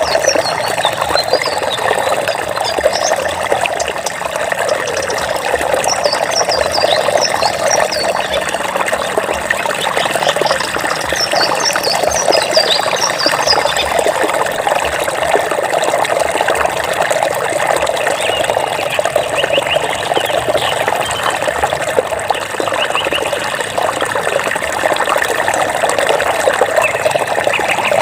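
Water trickling and babbling steadily, as in a small stream. Runs of short, high chirps come and go over it.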